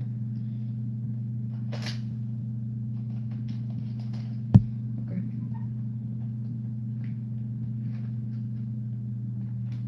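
Steady low electrical hum with a sharp click about four and a half seconds in and a brief rustle near two seconds.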